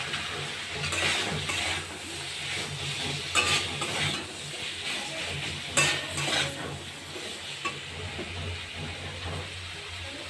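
Vegetables in spice paste sizzling in a frying pan while a spatula stirs and scrapes against the pan several times. This is the frying-down (kosha) stage of a curry masala.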